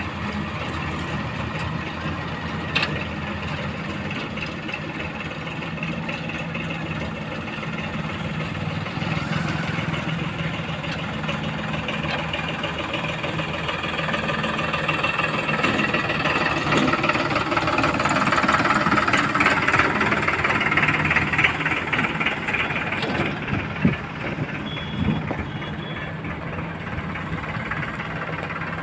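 Heavy diesel engine running steadily, growing louder and working harder from about nine seconds in until about twenty-three seconds, then easing back. Two short sharp knocks stand out, one about three seconds in and one near the end of the louder stretch.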